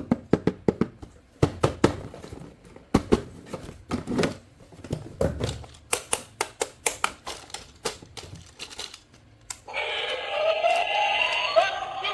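Quick, irregular clicks, taps and knocks of plastic toys and packaging being handled. Near the end a tune with a synthetic singing voice starts.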